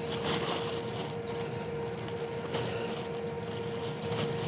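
Night-time outdoor ambience: insects calling steadily in a high, even chorus over a steady mid-pitched hum, with faint scattered ticks and rustles.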